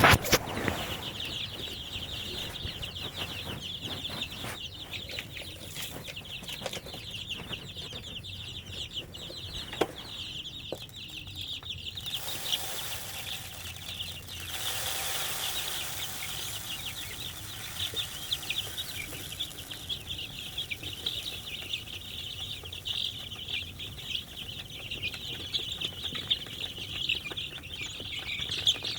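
Chickens clucking, over a steady high-pitched buzz with scattered small clicks. A broad hiss swells for a few seconds about midway.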